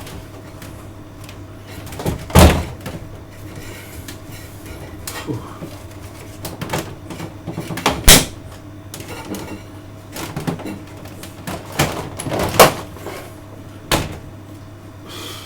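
Irregular knocks, clunks and rattles of the opened LCD TV being handled, its plastic back and chassis bumped and moved. The three loudest knocks fall about two and a half, eight and twelve and a half seconds in. A steady low hum runs underneath.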